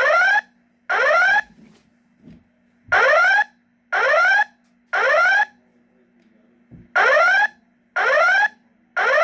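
Wheelock E7025 speaker strobe sounding the EVAX 50 voice evac panel's alarm tone in the temporal-three evacuation pattern: three half-second rising sweeps a second apart, a pause, then the next group of three. A faint steady hum runs underneath.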